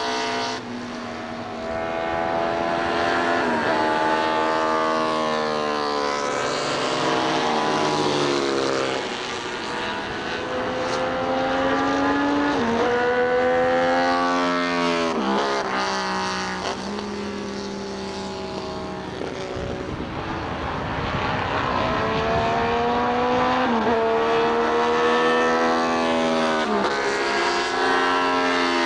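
Honda RC166 249cc six-cylinder four-stroke Grand Prix racing engine running at very high revs. Its pitch climbs through the gears and drops sharply at each gear change, again and again, as the bike laps the circuit.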